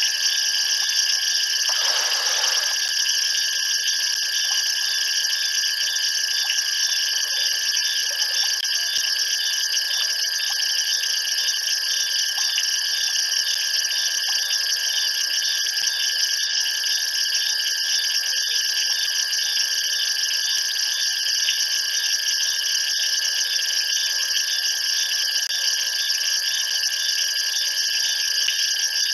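Steady, high-pitched night chorus of insects, several layered shrill tones going on without a break. A brief lower-pitched sound comes through about two seconds in.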